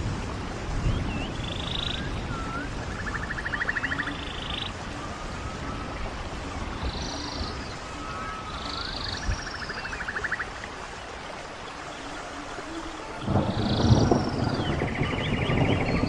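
Running stream water with birds calling over it in short repeated calls and buzzy, rapidly pulsed trills every few seconds. A low rumble swells in from about three-quarters of the way through.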